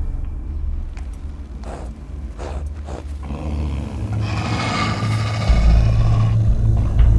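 A wolf growling and snarling for about two seconds, starting about four seconds in, over a deep steady rumble.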